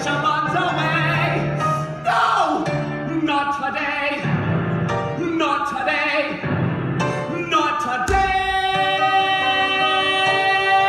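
A male voice singing the closing phrases of a musical-theatre song, then holding one long final note from about eight seconds in.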